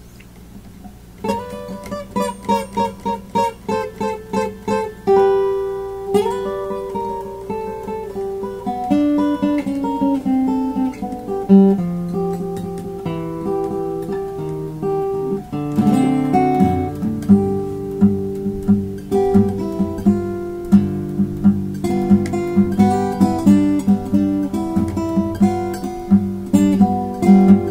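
Acoustic guitar played fingerstyle in a Delta blues style. It starts about a second in with a run of quick repeated plucks, then moves into a picked melody over held bass notes.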